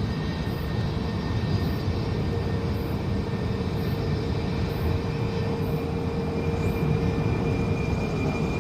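Malaysia Airlines Airbus A330's twin jet engines running as the airliner lands: a steady rumble with a constant whine on top.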